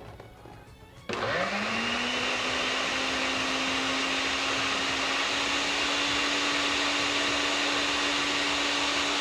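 Electric blender switched on about a second in, its motor spinning up quickly and then running at a steady high speed as it grinds the aguachile sauce of lime juice, cilantro, serrano chile, salt and pepper.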